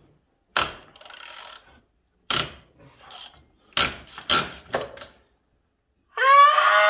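Socket ratchet wrench working bolts on an engine: several sharp metallic knocks, each followed by a short run of ratchet clicking. About six seconds in, a man lets out a loud, long cry of pain after hurting his finger.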